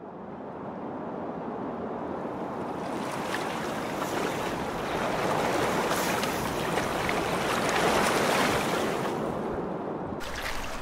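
Moving water: a steady rush of waves or rapids that fades in from silence and builds to its loudest about eight seconds in. Near the end it is cut to a different rushing noise.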